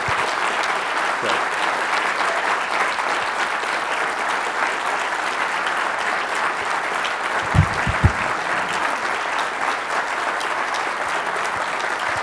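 Audience applauding steadily in a lecture theatre, many hands clapping at once. Two dull low thumps come a little past halfway.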